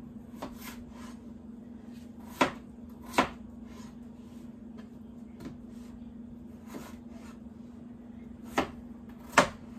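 Kitchen knife chopping peeled potatoes into cubes on a cutting board: irregular knocks of the blade meeting the board, four of them much louder than the light cuts between.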